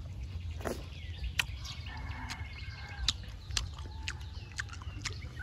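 Outdoor ambience: faint bird chirps and scattered sharp clicks over a low rumble.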